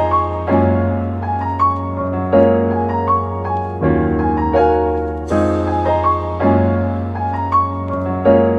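Background music played on a keyboard: sustained chords over a steady bass, a new chord struck every second or two, with short higher melody notes above.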